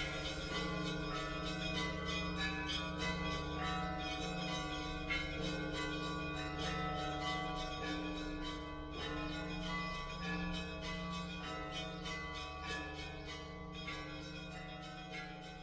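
Soft bell music: a steady run of struck bell notes ringing over sustained tones.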